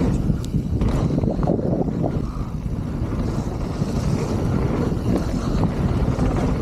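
Wind rushing over the action camera's microphone and the low rumble of mountain bike tyres rolling fast over a dirt trail, with a few brief rattles from the bike in the first second.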